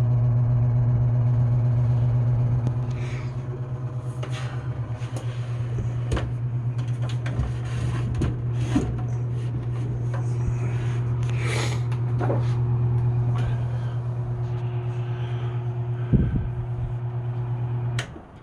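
Lakewood-made Penney's SPXC 20-inch box fan running on low speed: a steady motor hum with scattered clicks and knocks over it, the hum stopping suddenly near the end.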